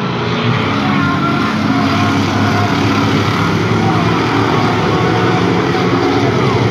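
A pack of hobby stock race cars running at racing speed, their engines a loud, steady blend as the field passes close by.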